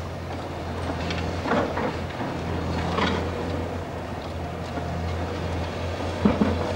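High-reach demolition excavator running steadily with a low diesel drone, with irregular crunches and clatter of concrete and debris as its hydraulic crusher breaks into the upper floor, three times, loudest near the end.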